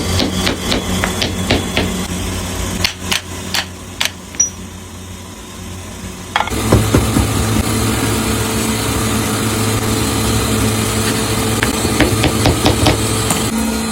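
Metal-workshop sounds: scattered sharp knocks of hammering over a low hum. About six and a half seconds in, a louder steady machine hum with quick light clattering takes over abruptly.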